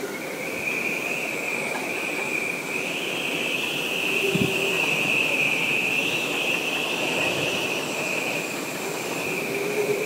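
Hurricane wind whistling at a steady high pitch, wavering and swelling slightly, over a continuous rushing hiss.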